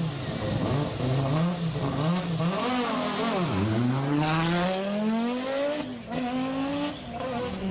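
Group B Audi Quattro rally car's turbocharged five-cylinder engine revving hard. The pitch rises and falls, drops sharply about three and a half seconds in, then climbs steadily in a long pull with a brief break near six seconds. A short hiss comes just after the drop.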